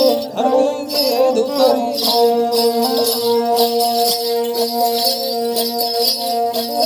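Ravanhatta, the bowed Rajasthani folk fiddle, playing a wavering folk melody that settles into a long held note about two seconds in, with the bells on the instrument jingling throughout.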